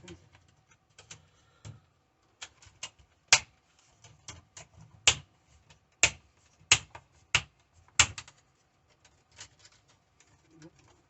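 Irregular sharp plastic clicks and taps on a Samsung Chromebook, about a dozen, with five or six much louder than the rest between about three and eight seconds in.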